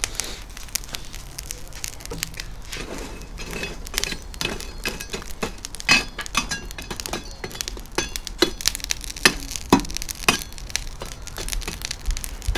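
Irregular sharp clinks and knocks, several a second, over a low steady hum.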